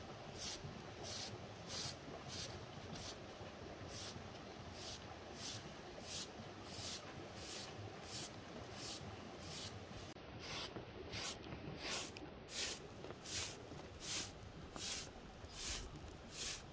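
Crisp swishing strokes repeating evenly, about one and a half a second.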